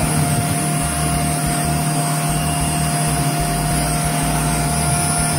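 Xiaomi handheld bed mite-remover vacuum running steadily, its motor humming with a high whine, then switched off near the end.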